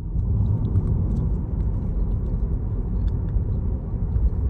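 Car driving along a road, heard from inside the cabin: a steady low rumble of tyres and engine, with faint light ticks over it.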